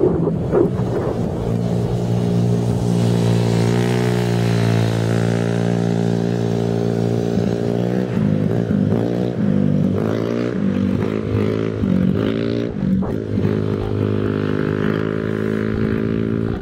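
A motor engine running steadily, its pitch rising a little early on and wavering up and down in the second half.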